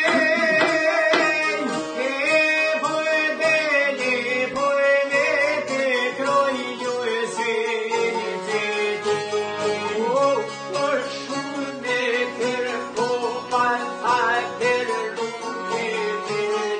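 Albanian folk song: a man singing to long-necked plucked lutes strummed together and an accordion, a wavering melody line held over the dense strumming.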